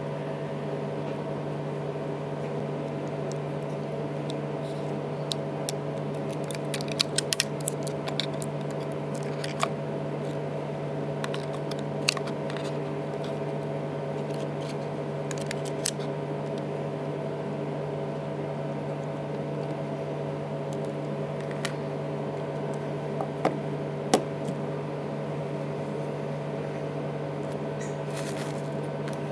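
Light clicks and taps of small tools and parts being handled while an iPhone 3GS is taken apart, over a steady electrical hum. There is a quick flurry of clicks about a quarter of the way in and a few single ticks later on.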